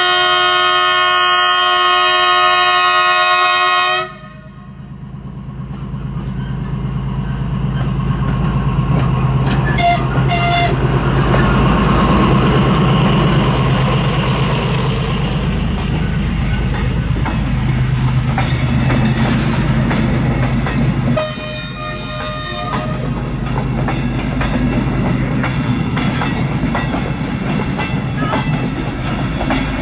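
Hungarian M41 diesel-hydraulic locomotive sounding a long horn blast that cuts off about four seconds in. Its engine then rumbles past and the train of passenger coaches rolls by with a steady clatter of wheels over rail joints.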